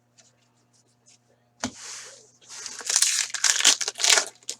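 A 15-16 Upper Deck Series 1 hockey card pack wrapper being torn open and crinkled: a sharp rip about a second and a half in, then a couple of seconds of crinkling.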